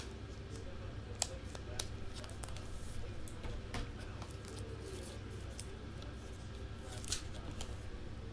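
Scattered light clicks and scrapes of a trading card being handled and slid into a rigid plastic top loader, over a low steady hum.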